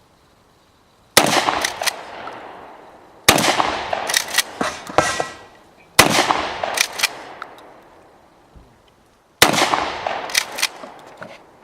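Benelli shotgun firing four loud shots a couple of seconds apart. Each shot is followed by several smaller sharp cracks and a fading echo.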